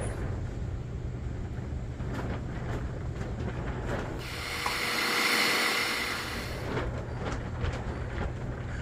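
Light clicks and handling noise over a steady low background rumble, with a steady hiss lasting about two and a half seconds that starts about four seconds in.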